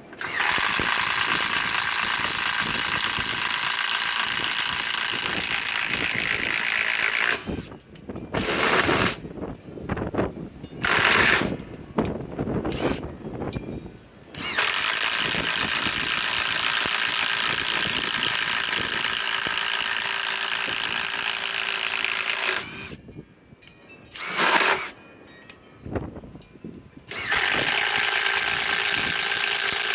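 Cordless impact driver on high speed, hammering as it drives a 1.5-inch spade bit through wood: long runs of steady rapid impacting, twice broken by a string of short stop-and-start bursts.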